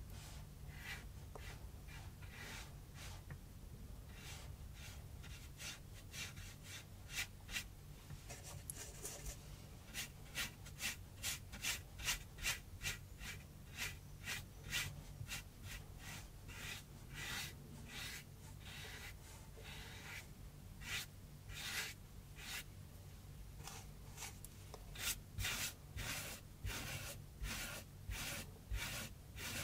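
Flat paintbrush dragging thick gouache across rough cardboard in repeated sweeping strokes, each one a short, dry, scratchy swish of bristles. The strokes are sparse at first, then come about one to two a second from about a third of the way in.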